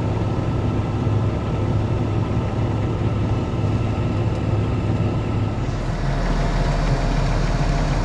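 Combine harvester running steadily through the harvest, a continuous deep engine hum; about six seconds in the low rumble shifts to a deeper, steadier drone.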